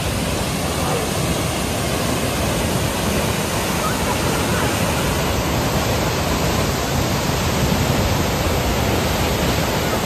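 Giessbach Falls, a tall waterfall, crashing down close by: a loud, steady rush of falling water that covers everything from deep rumble to hiss.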